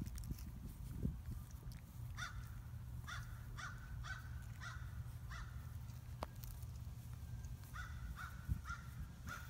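A crow cawing, two runs of short harsh caws: about six in a row, then after a pause about four more.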